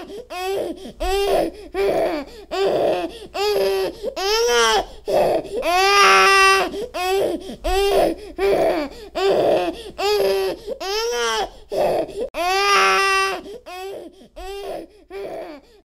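An infant crying in a long string of short wails, each rising and falling in pitch, one after another with brief breaths between.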